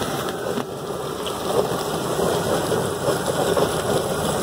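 Poultry plucker running with the duck inside: a steady rain-like rushing and spattering noise at an even level.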